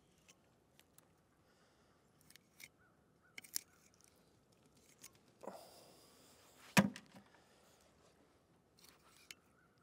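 Knife work on a plucked chicken carcass on a table: faint scattered clicks and taps, then one sharp knock about seven seconds in, like a knife chopping down onto the table.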